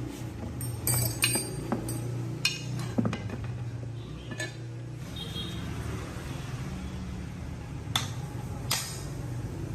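Small metal parts and tools clinking and knocking as they are handled, a cluster of clinks in the first few seconds and two more near the end, over a steady low hum.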